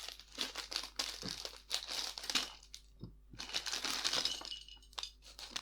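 Plastic packaging crinkling and rustling as it is handled, in irregular spells with a brief pause about three seconds in.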